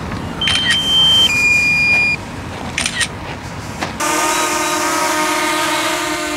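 Two steady electronic beep tones, the second lower, with a couple of clicks, then a steady motor hum that starts suddenly about four seconds in and begins to drop in pitch at the end.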